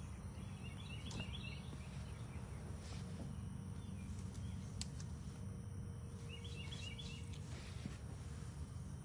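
A steady low rumble of outdoor background noise, with a small bird's short burst of quick chirps twice, about a second in and again near the end.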